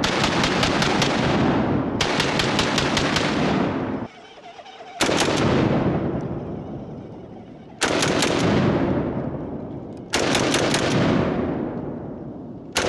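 Fully automatic AK-47 in 7.62×39mm firing: a long stretch of rapid fire for about the first four seconds, a brief pause, then short bursts roughly every two and a half seconds. Each burst trails off in an echo before the next.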